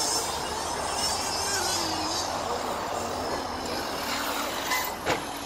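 Arrma Kraton 8S brushless electric RC monster truck driving away across the track: a faint motor and gear whine that rises and falls with the throttle, over tyre and track noise, with two short knocks near the end.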